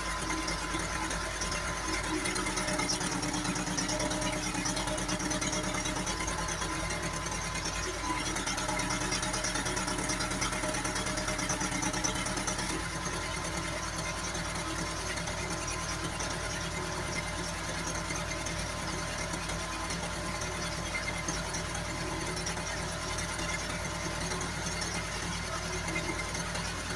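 Hymac 370C excavator's diesel engine running steadily, its low note shifting about thirteen seconds in.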